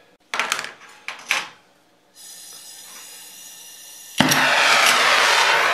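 A few light metal clicks and knocks, then gas starts to hiss faintly from a torch about two seconds in. A little past four seconds the torch lights and its flame hisses loudly and steadily.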